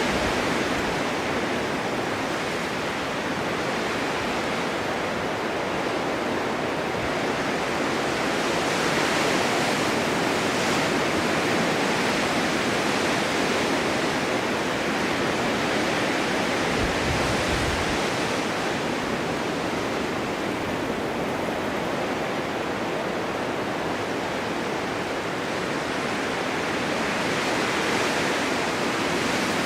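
Blizzard wind rushing steadily with slow gusts, carrying blowing snow. A brief low rumble of wind buffeting comes about seventeen seconds in.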